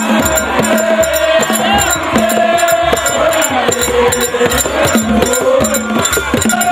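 Folk music: voices singing together over a steady drum beat and rattling shakers.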